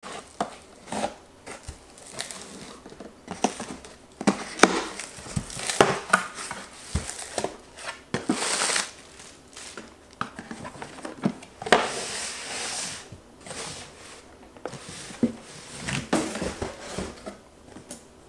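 Cardboard shipping box opened by hand: packing tape ripped off, cardboard flaps and boxes scraping and knocking, and plastic packaging crinkling. There are many short knocks and several longer rips, the longest a little past the middle.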